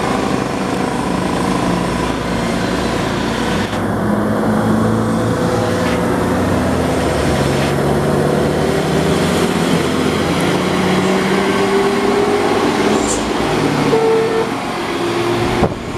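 Diesel engines of old round-nosed Mercedes-Benz trucks labouring up a steep climb under load, a loud steady engine drone whose pitch drifts slowly up and down. The sound changes abruptly a few times as one truck gives way to the next.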